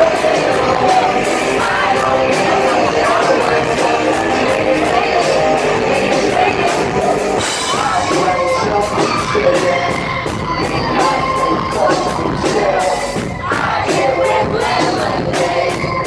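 Live rock band playing loudly, with a sung lead vocal over a steady cymbal beat and some crowd yelling.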